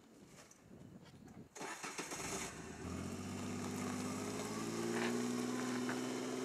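Kawasaki side-by-side utility vehicle's engine starting about a second and a half in, settling into a steady run, then rising slightly in pitch as the vehicle pulls away.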